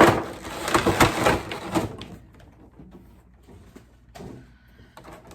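Packaging rustling and crinkling as sewing tools are unpacked by hand, busy for about two seconds, then a few faint handling clicks.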